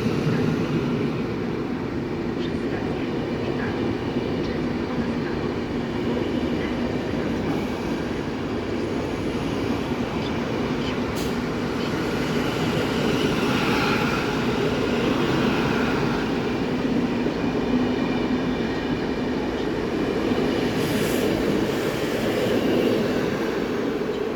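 Train running on the tracks, a steady rumble throughout, with a faint high wheel squeal about halfway through.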